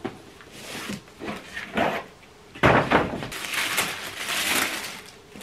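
A cardboard shoebox being opened by hand: light rustling as the ribbon comes off, a thump about two and a half seconds in as the lid comes off, then tissue paper rustling inside the box for a couple of seconds.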